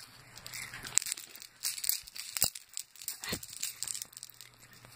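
Crinkling and crackling close to the microphone: a string of short, sharp crackles, scattered unevenly.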